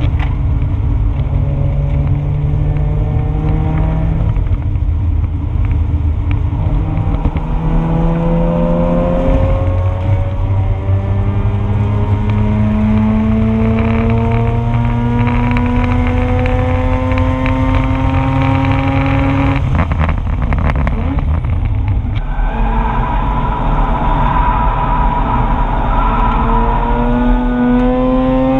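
2004 Mazda RX-8's two-rotor Renesis rotary engine under hard acceleration on track, heard from inside the car: its pitch climbs steadily through the revs and falls back sharply about a third of the way in and again about two-thirds in, then climbs again near the end.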